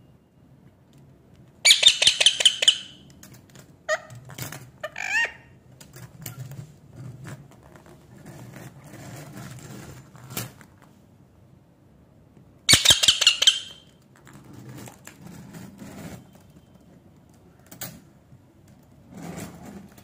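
Indian ringneck parakeet pushing a small wire toy shopping cart across a tiled floor: the cart rolls and rattles with scattered clicks and a few short rising squeaks. Two loud, harsh, rapidly pulsing bursts of about a second each come about two seconds in and again past the middle.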